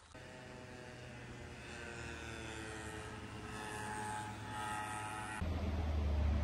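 A steady engine drone with its pitch slowly rising. About five seconds in it gives way suddenly to a loud low rumble.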